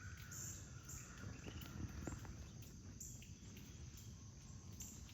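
Faint outdoor ambience with short, high-pitched chirps from insects repeating every second or so, and a few faint clicks.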